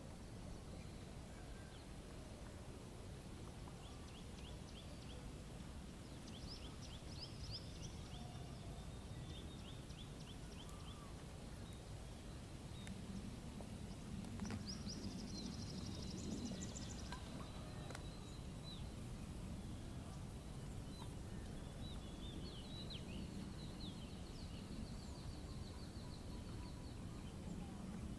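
Birds chirping, with several bursts of rapid high trills coming and going over a low, steady outdoor background rumble.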